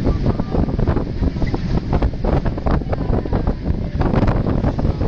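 Wind buffeting the microphone: a loud, rough rushing with constant gusty thumps.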